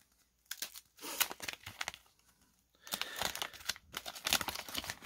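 Wax paper wrapper of a baseball card pack being torn open and crinkled by hand, in two spells of crackling with a short pause about two seconds in.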